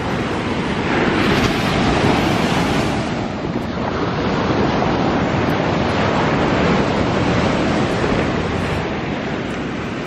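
Ocean surf breaking and washing up the beach, swelling and easing twice, with wind rumbling on the microphone.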